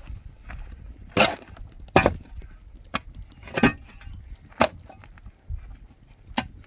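Steel shovel blade striking and scraping into hard, dry, stony soil while digging a hole, about six strikes roughly a second apart, some trailing off in a short gritty scrape.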